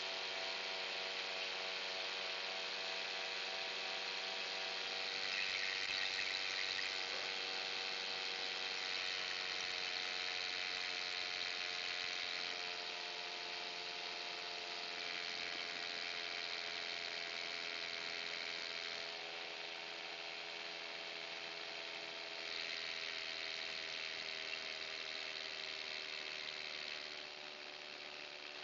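Paramotor engine and propeller droning steadily in flight, its pitch sinking slowly and the sound dropping a little near the end. Over it, a hiss swells and fades every few seconds.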